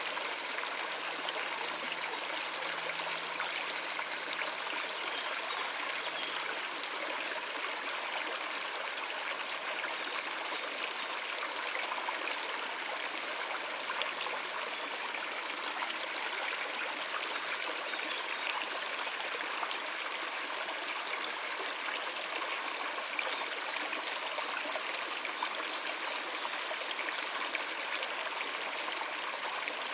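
Shallow stream running over rocks, a steady babbling and trickling rush of water.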